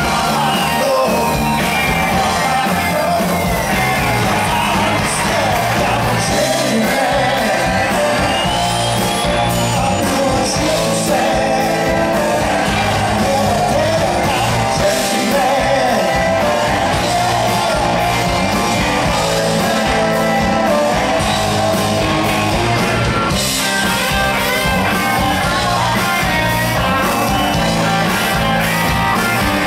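Live rock band playing loudly: a male lead vocal over electric guitar, bass and drums.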